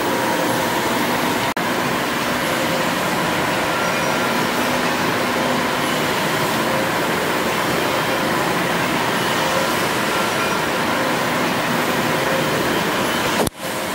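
1902 Robey cross-compound steam engine running steadily: a continuous even mechanical hum and hiss with no distinct beat. The sound breaks off briefly about a second and a half in and again just before the end.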